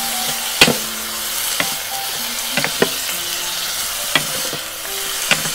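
Bean sprouts stir-frying in hot oil, with a steady sizzle. A wooden spatula clacks against the pan about six times as it tosses them.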